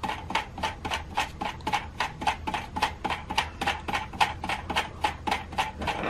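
Small plastic drive wheel of a Tyco US1 log-loading bulldozer mechanism turned by hand, clicking evenly at about five clicks a second as it cranks the 3D-printed reverse retractor through its cycle.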